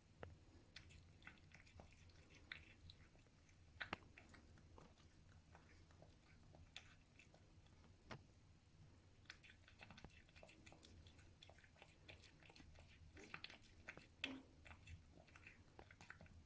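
A cat eating, its chewing heard as a faint, irregular run of sharp clicks and crunches.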